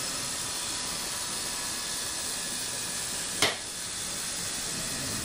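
Steady hiss, with one short click about three and a half seconds in.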